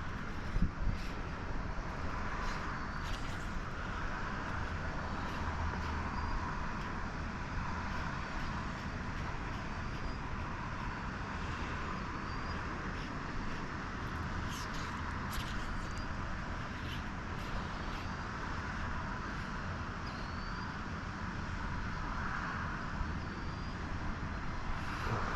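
Steady rushing roar of water pouring through a large dam spillway, with wind buffeting the microphone. A faint short rising chirp repeats about every two seconds.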